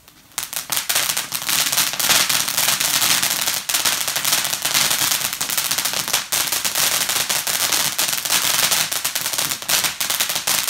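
Fireworks crackling: a dense, continuous stream of rapid small cracks that starts about half a second in and keeps going.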